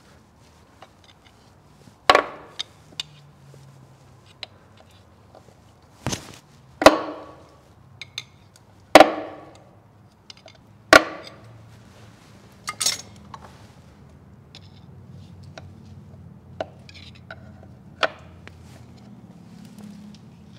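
Sharp metal knocks and clinks of a screwdriver being worked in to pry out the front main crankshaft seal of a CAT C15 diesel engine. About seven loud, irregularly spaced strikes, some with a short ringing tail, and small ticks between them.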